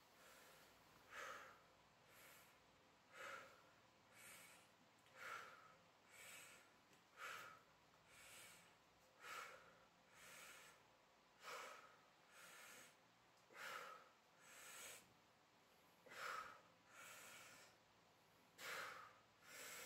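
A man breathing hard and rhythmically from the exertion of a set of one-arm dumbbell preacher curls. There is a strong breath about every two seconds, with a softer breath between.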